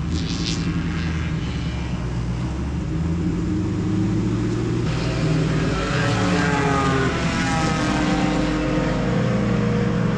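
Race car engine running, heard from inside the cockpit, its pitch rising as it accelerates in the second half.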